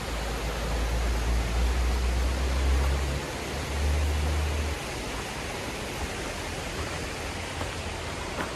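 Mountain stream rushing steadily, an even roar of water, with a low rumble underneath for about the first five seconds that then drops away.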